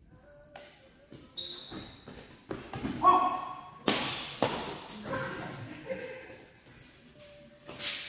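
Badminton rally: a string of sharp racket strikes on the shuttlecock, each ringing on in the large hall, with short high shoe squeaks on the court floor between them.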